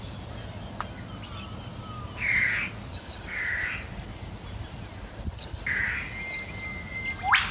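Crows cawing: three harsh calls, the first two about a second apart and the third after a longer gap, with small birds chirping. Near the end a thin steady whistle ends in a sharp rising squeak.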